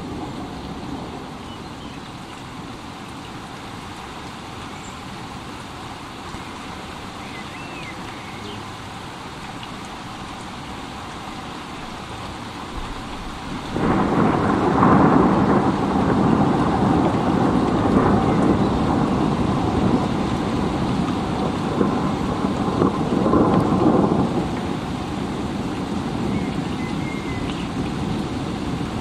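Steady rain, joined about halfway through by a loud roll of thunder that breaks in suddenly and rumbles for about ten seconds before settling back into the rain.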